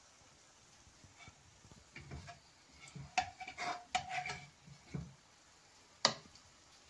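A spoon knocking and scraping against a non-stick cooking pot as chicken pieces and potatoes are moved about on the rice. Several light knocks come between about two and five seconds in, and one sharp clink comes about six seconds in.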